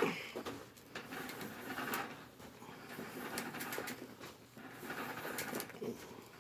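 Plastic insulation being slit with a sharp blade and peeled off copper wire by hand: irregular scraping and rustling with sharp clicks.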